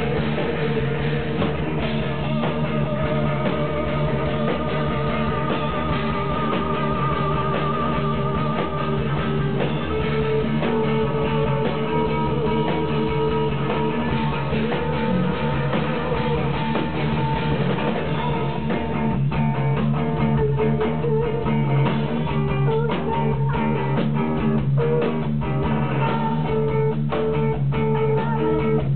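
Live heavy noise-rock band playing: electric guitars hold long, droning tones over bass and a drum kit. About two-thirds of the way through, the drum strikes come through more often and more sharply.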